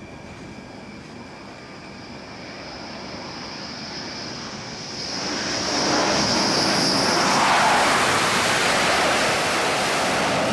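Dassault Rafale M's twin jet engines running up to full power at an aircraft-carrier catapult before launch. A high whine sits over the noise, and the roar builds from about four seconds in and is loud from about six seconds on.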